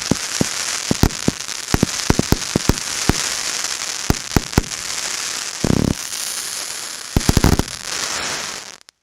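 Consumer firework cake of 1.2-inch tubes firing: a string of sharp bangs over a constant crackling hiss. There are two quick rattling clusters of bangs about six and seven and a half seconds in. The sound fades and cuts off abruptly just before the end.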